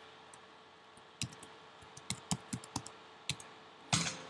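A password typed on a MacBook keyboard: a quick string of about ten sharp keystroke clicks, then a louder short burst near the end as the entry is confirmed.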